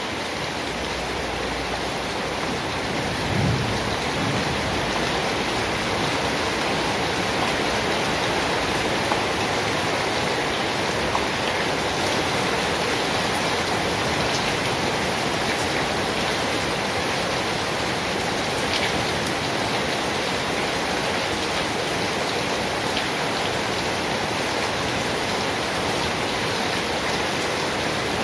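Steady, dense rainfall with an even hiss that does not let up, and a brief low rumble about three seconds in.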